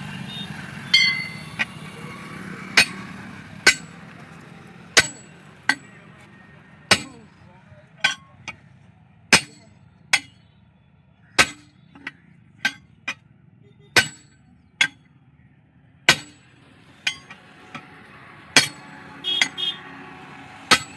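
Hammer striking metal on a truck wheel, about twenty separate blows at an uneven pace of roughly one a second, each ringing briefly.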